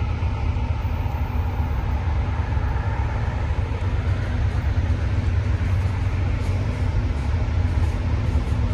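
A train running past with a steady low rumble.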